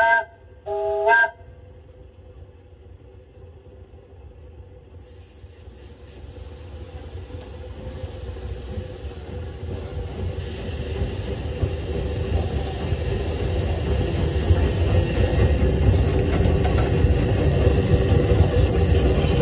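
A 24-inch gauge steam locomotive's whistle finishes one blast and gives a second short toot about a second in. Then the locomotive's running noise, a rumble with hiss, builds steadily louder as it gets moving.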